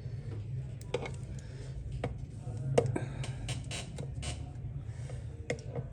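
Scattered faint clicks and taps, like small parts and tools handled on a workbench, over a steady low hum.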